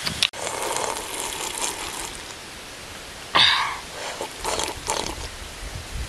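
Close-up eating and drinking mouth sounds: chewing and lip smacking, with one loud slurp about three and a half seconds in as a drink is sipped from a cup.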